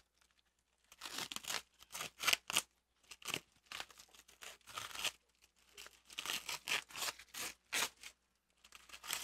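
Packing tape and wrapping being torn off a parcel by hand in a series of short, irregular rips, with brief pauses between bursts.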